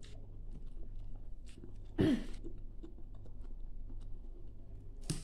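Close-up mouth sounds of a person chewing food, with small wet clicks, over a low steady hum. About two seconds in there is a short, louder sound from a voice, and a sharp click comes near the end.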